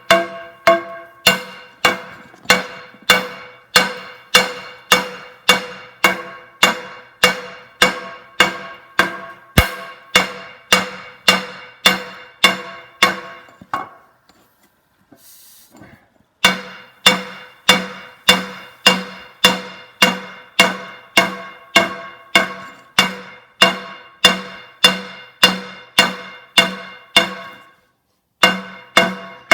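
Hand hammer striking a heated steel cable tool drill bit on an anvil, about two blows a second, each ringing out with the anvil's steady tones, as the bit's edges are forged to a point. The hammering stops for about two seconds midway, then resumes.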